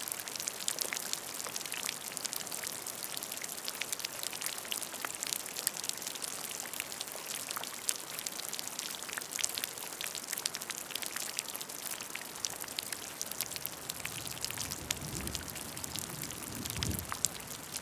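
Steady rain, with many distinct drops striking a surface over a dense hiss. A low rumble swells in during the last few seconds.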